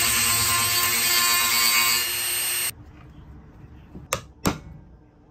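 Handheld rotary tool with a small grinding stone running at high speed, grinding the head off a pocket knife's brass blade pin to remove it; it stops abruptly under three seconds in. A little after four seconds in come two sharp taps close together, a pin punch being struck to drive the pin out.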